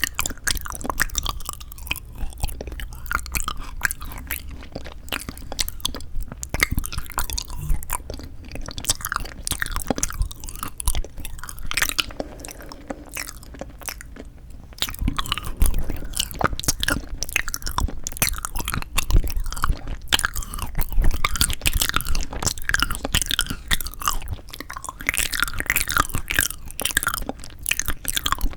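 Close-miked chewing and biting of frozen sweet red bean jelly (yanggaeng): a dense, continuous run of small wet clicks and smacks, a little louder from about halfway through and again near the end.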